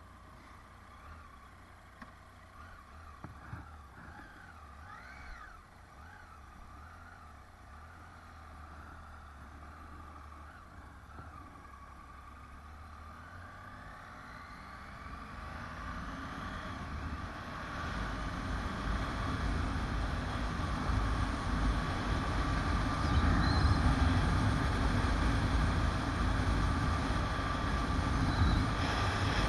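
Motorcycle ridden away from a hairpin bend, heard from a bike-mounted camera. At first the engine is low and quiet. About halfway through, a rising whine appears, and wind and road noise build steadily as the bike picks up speed, becoming loud over the last third.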